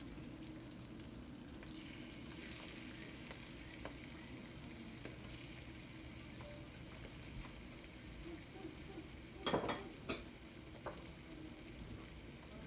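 Pork liver sizzling steadily as it fries in a pan. A brief clatter of stirring knocks comes about three-quarters of the way through.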